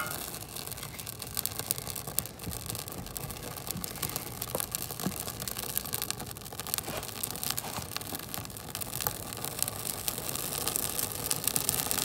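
Birch bark and split kindling burning in a rocket stove's firebox, crackling and snapping with dense little pops, getting gradually louder as the fire catches and the flames build.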